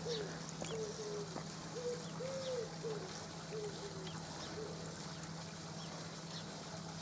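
A pigeon cooing in two phrases of several low coos, the second phrase ending about four and a half seconds in, over a steady low hum and faint twittering of small birds.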